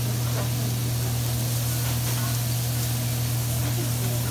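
Chicken, steak and shrimp sizzling steadily on a hot teppanyaki griddle, an even hiss over a steady low hum.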